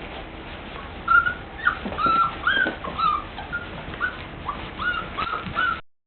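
Golden retriever puppies whimpering: a string of short, high squeaky whines, one after another, starting about a second in and cutting off suddenly near the end.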